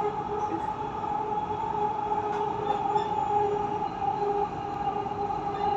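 Dubai Metro train running at speed, heard from inside the carriage: steady running noise with a held whine over it.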